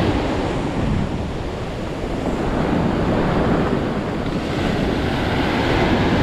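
Sea surf breaking and washing on the beach, with wind buffeting the microphone; the wash eases a couple of seconds in and builds again towards the end.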